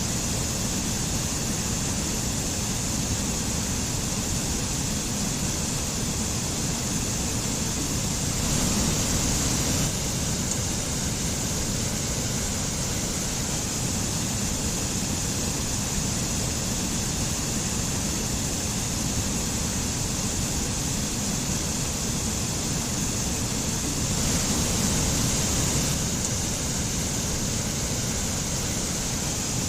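Mountain stream water rushing and splashing in a steady, even wash. It swells slightly twice, once about a third of the way in and again near the end.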